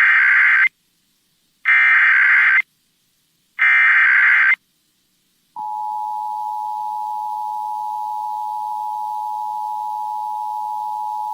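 Emergency Alert System test signal: three one-second bursts of SAME header data, about a second apart, then about five and a half seconds in the steady two-tone EAS attention signal begins and holds.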